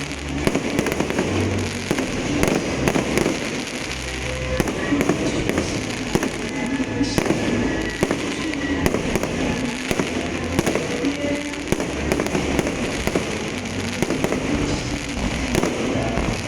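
Fireworks going off continuously: a dense run of sharp cracks and pops with low booms underneath.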